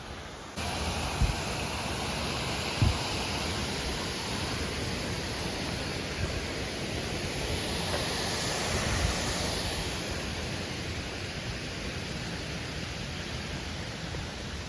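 Steady rush of waterfall water, a dense even roar that cuts in sharply about half a second in, with a few dull low thumps about one, three and nine seconds in.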